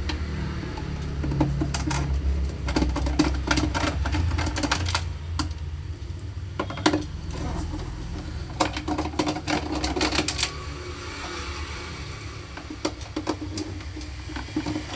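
Screwdriver backing screws out of the plastic case of an APC Back-UPS 600: spells of quick small clicks and plastic rattles, with pauses between them, over a steady low hum.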